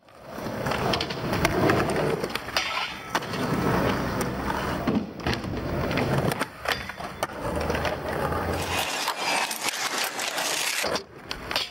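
Skateboard wheels rolling over concrete, fading in at the start, with repeated sharp clacks and knocks of the board and trucks striking the ground and obstacles.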